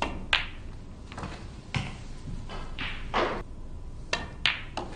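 Snooker balls clicking as shots are played: the cue striking the cue ball and hard resin balls knocking into one another. There are several sharp clacks, the loudest about a third of a second in.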